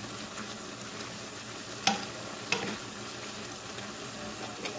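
Wooden spatula stirring glass noodles and vegetables in a wok over a steady sizzle, with two sharp clacks of the spatula against the pan about two seconds in.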